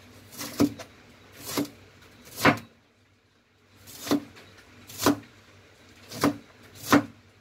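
Chinese cleaver slicing choy sum stems on a cutting board: eight separate knocks of the blade hitting the board, each with a short crisp cut through the stem just before it. There is a pause of about a second around three seconds in.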